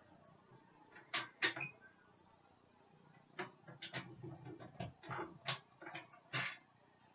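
Cardstock being handled and slid across a paper trimmer: two sharp clicks about a second in, then a run of irregular taps and paper rustles.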